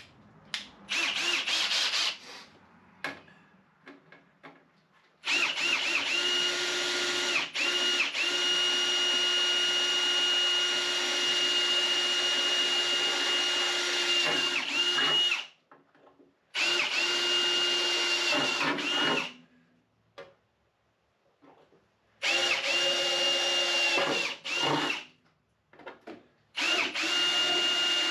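Cordless drill running at a steady whine in several runs: a short one about a second in, one long run of about ten seconds, then three shorter runs of a few seconds each. It is drilling mounting holes in the car's aluminium F panel for the expansion tank.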